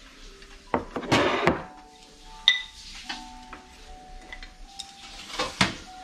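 Wooden chopsticks scraping and tapping against a ceramic plate while stirring food, with a sharp clink that rings briefly about two and a half seconds in. Soft instrumental music plays underneath.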